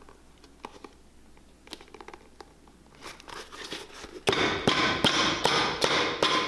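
Cobbler's hammer tapping a freshly stuck black rubber wedge layer onto the heel of a leather dress shoe to set the bond: quick sharp taps, about three a second, starting about four seconds in. Before the taps there are only faint rustles and clicks as the rubber sheet is handled and pressed on.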